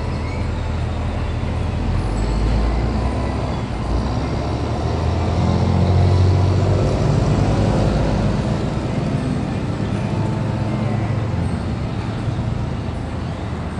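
Road traffic rumble as a motor vehicle passes: a low steady rumble that builds over the first few seconds, is loudest about six seconds in, then slowly fades.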